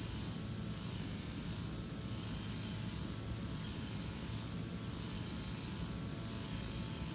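Engine-driven brush cutter running steadily, a constant droning hum with a slight waver in pitch as the cutter is swung through grass.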